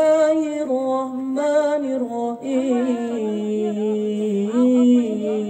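A man's voice chanting in long held notes through a microphone, the melodic opening of a Quran recitation. The pitch steps slowly downward from note to note.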